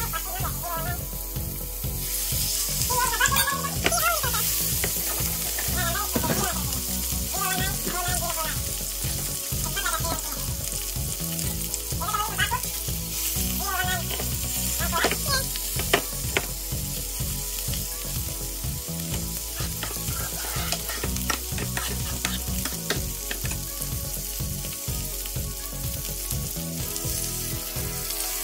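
Beef steaks searing in hot oil in a frying pan: a steady sizzle with frequent small crackles and spits.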